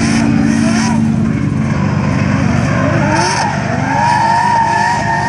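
Drift car sliding sideways under power: its engine revs rise and fall repeatedly while the rear tyres squeal. A long, steady tyre screech sets in about three seconds in.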